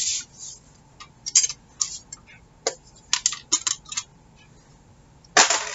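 Sheets of cardstock handled and slid across a cutting mat: a run of short paper rustles and light taps, with a louder brushing sweep near the end.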